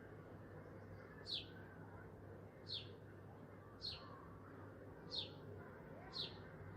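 A bird chirping repeatedly in the background: five short, high, falling chirps, about one every second and a bit, over faint steady background noise.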